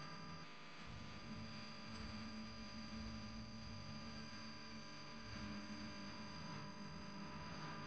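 Faint steady hum with a thin high whine above it, without any distinct events.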